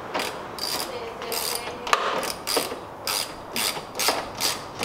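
Socket ratchet clicking in quick repeated back-strokes, about two to three a second, as a 9/16 nut on a strut tower bar's mounting bolt is snugged down.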